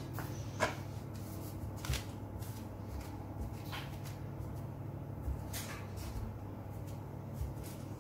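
Metal cookie cutter pressing through rolled sablé dough onto parchment paper: a handful of soft taps and paper rustles a second or two apart, over a steady low hum.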